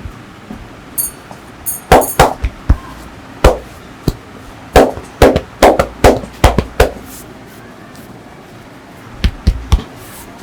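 Percussive massage strokes: hands slapping and chopping on a person's body in an irregular run of about fifteen sharp smacks, a pause, then three more near the end.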